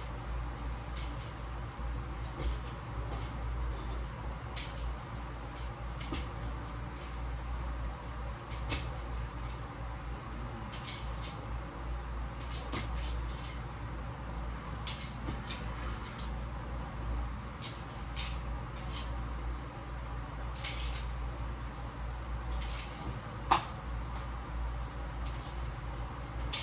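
Metal handcuffs clinking and rattling again and again as they are flipped, in short irregular clicks, with one louder clack near the end, over a steady low hum.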